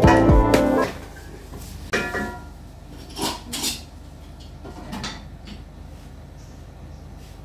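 Background music that cuts off within the first second, then kitchen clatter: a metal pot lid and utensils knocking against a pot on a gas stove, a few short clinks about two, three and a half, and five seconds in.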